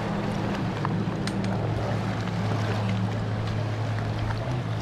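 Jet ski engine running steadily at low revs, a steady low hum.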